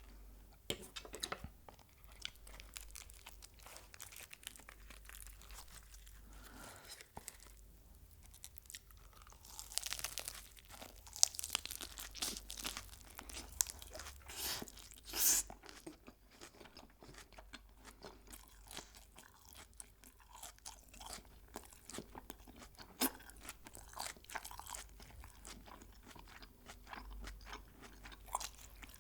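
Close-miked chewing of crispy fried chicken: many sharp crunches and crackles of the coating, busiest about a third of the way in.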